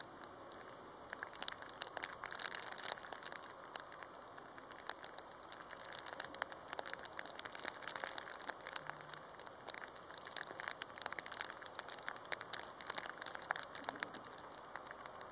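Heavy rain falling, with dense, irregular ticks of drops striking close by. The ticks are thickest from about a second in until near the end.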